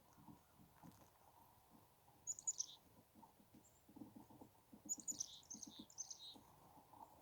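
Chickadees calling: a few short, high, downward-sliding notes a little over two seconds in, then a quick run of them around five to six seconds in, over a patter of faint low ticks.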